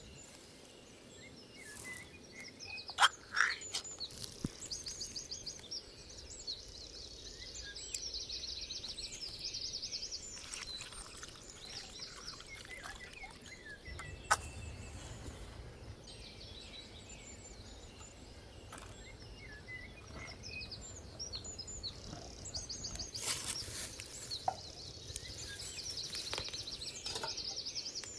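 Songbirds singing, with rapid high trills repeating every few seconds, over a steady outdoor background; a few sharp clicks or knocks stand out, the loudest about three seconds in.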